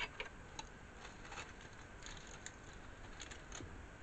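Faint, scattered small clicks and light crackles of food being handled over a takeout tray.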